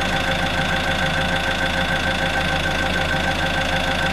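Heavy-equipment engine running steadily at constant speed, with a steady whine over its rumble.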